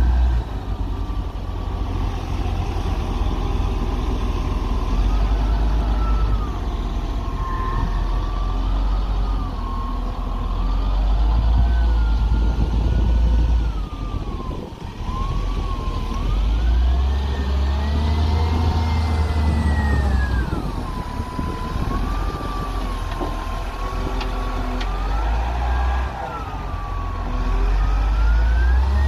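Caterpillar 950H wheel loader's diesel engine running under load and revving as it works sand: a deep, continuous rumble with a whine above it that rises and falls in pitch with the revs.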